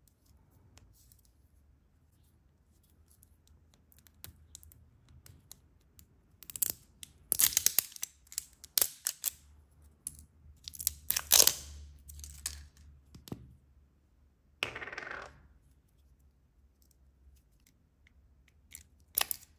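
Sour gel candy tube being opened by hand: light clicks of its plastic cap, then loud crinkling of its foil seal and wrapper as it is torn and peeled off, with a short tearing rasp near the end and a couple of sharp clicks at the very end.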